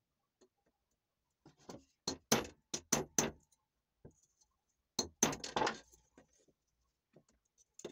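Small metal hand tool clinking and tapping against a thick steel plate: a cluster of light sharp clicks about two seconds in and another about five seconds in, with a few faint ticks after.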